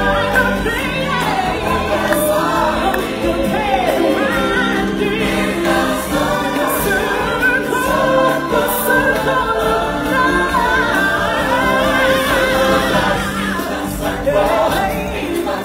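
Live stage-show music: a choir of voices singing together over a continuous musical backing.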